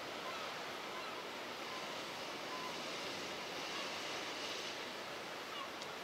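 Steady wash of surf and wind noise, with wind on the microphone of a moving bicycle.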